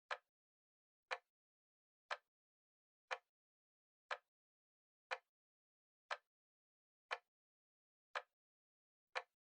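Timer ticking once a second like a clock's second hand: short, sharp, dry ticks evenly spaced, with silence between them.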